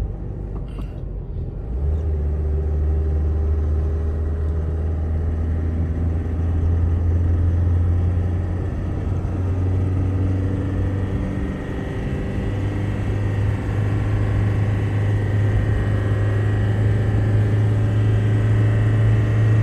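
Car engine and road noise heard from inside the cabin while driving: a steady low drone that grows louder about two seconds in and rises in pitch around twelve seconds in.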